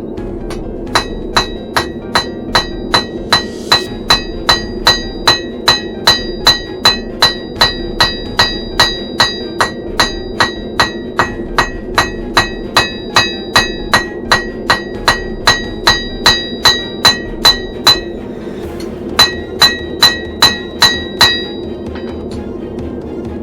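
Blacksmith's hammer striking hot steel on an anvil at a steady pace, about two to three blows a second, each blow ringing. After a short pause a few more blows follow, then the hammering stops. Underneath runs the steady roar of the forge.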